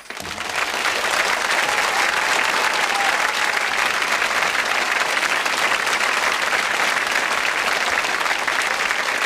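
Studio audience applauding. The clapping swells over about the first second, then holds steady.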